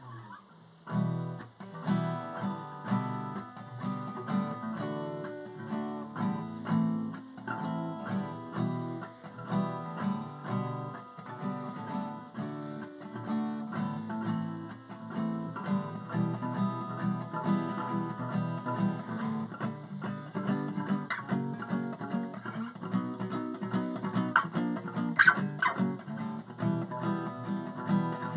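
Acoustic guitar playing an instrumental song intro, a steady rhythm of picked and strummed chords, with one sharper accent near the end.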